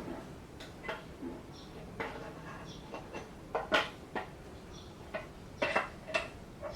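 Irregular metal clinks and knocks, some with a short ring, a second or so apart, the loudest about halfway through.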